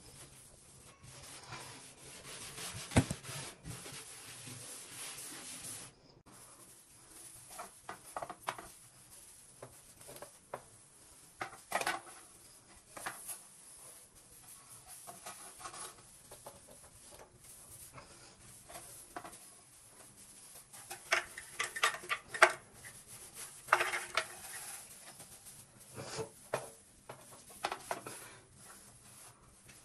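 A cleaning sponge or cloth rubbing and wiping over hard household surfaces: a steady scrubbing for the first few seconds, then scattered scrapes, light knocks and clacks. The sharpest knocks come about three seconds in and around twenty-two seconds in.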